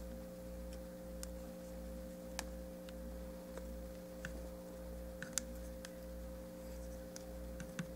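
Steady background hum with a faint held tone, broken by a few faint clicks as a plastic action figure's leg is handled and moved.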